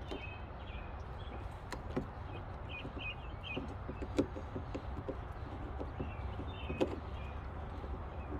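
Scattered light clicks and taps of hands and small parts being handled, with a sharper click about four seconds in and another near seven seconds. Short high chirps of a bird come in a few groups over a steady low hum.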